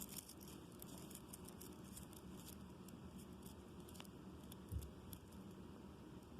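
Faint, light clicking and ticking from a small ring puzzle toy being handled and fiddled with, with a soft low thump a little before the end.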